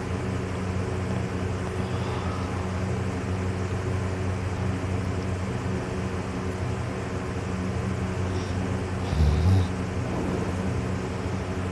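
Steady low mechanical hum made of several even tones, with one short, louder low sound about nine seconds in.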